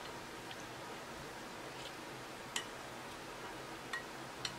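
Wooden spatula stirring cherry tomatoes in a glass mixing bowl, knocking lightly against the glass three times: once about two and a half seconds in, twice near the end. A steady low hiss lies under it.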